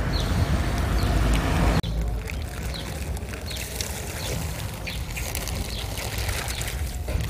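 Small birds chirping over and over against a steady rumble of wind on the microphone, with a rushing noise that drops away about two seconds in, and light crinkling of a plastic bag being handled.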